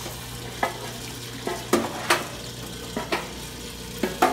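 A metal tool knocking and scraping inside a stainless-steel fryer vat: about eight sharp clanks at uneven intervals. Underneath runs a steady hum from the oil-filter machine's pump motor, along with oil draining.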